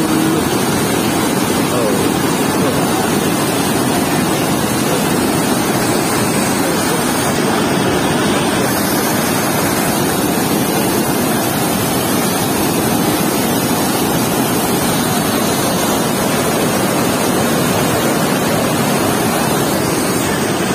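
Steady rush of white water pouring through an open dam sluice gate.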